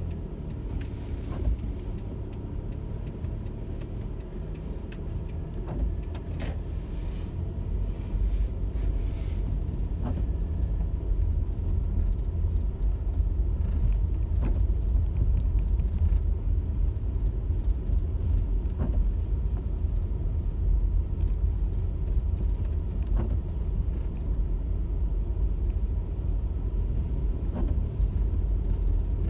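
Car driving on a snowy road: steady low road and engine rumble that grows louder about a third of the way in, with brief hissing early on and faint clicks every four or five seconds.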